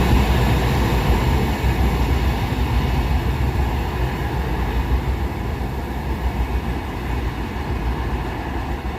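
Indian Railways express train's coaches rolling past on the track, wheels rumbling over the rails, the sound slowly fading as the train moves away.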